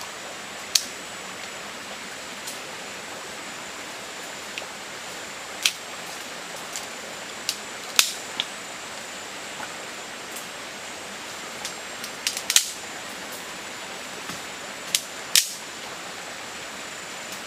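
Steady rush of a shallow river flowing over stones, with a scatter of sharp, brief clicks and snaps, about a dozen in all. The loudest come about eight seconds in, in a cluster around twelve and a half seconds, and two more near the end.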